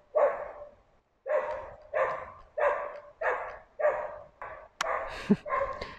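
A dog barking at a person: a quick run of short barks, about one every two-thirds of a second, with a brief pause about a second in.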